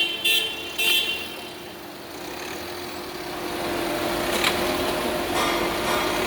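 Two short car-horn honks in traffic about a second in, over a steady hum, then engine and road noise rising.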